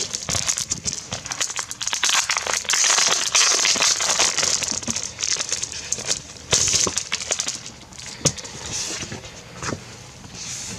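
Thin plastic crinkling and rustling as clear files are handled, with the loudest bursts a few seconds in and again past the middle.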